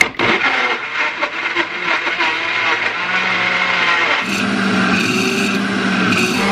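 Philips Walita countertop blender starting abruptly and running, blending raw carrot chunks with eggs, oil and sugar into cake batter. At first there is an uneven clatter as the chunks are chopped. About four seconds in it settles into a steadier whir once the mix has turned to purée.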